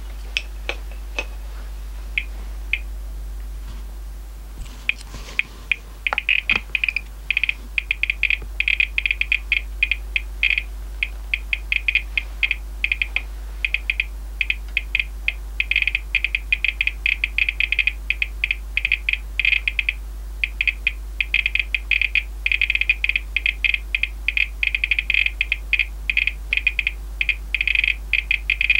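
RadEye G-10 gamma survey meter's count beeper chirping, one short high chirp per detected count. It gives a few scattered chirps at first, then from about six seconds in a rapid, irregular stream of chirps as the displayed gamma dose rate climbs from background to about 7 µSv/h.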